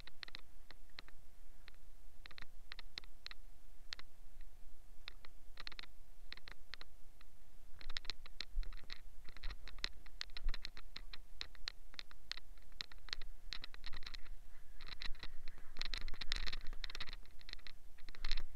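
Hand scrubbing a wet, soapy steel wheel rim: irregular scratchy, scraping strokes, coming faster and denser near the end.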